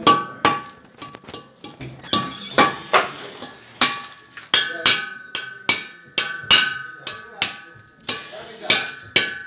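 Steel LPG gas cylinder being struck over and over with a rod, about two ringing metallic clangs a second. The blows knock ice off a cylinder whose gas has frozen in the extreme cold.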